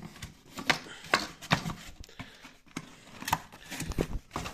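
Cardboard parts boxes being handled: a string of irregular taps, knocks and rustles as the flaps are pushed and the boxes moved.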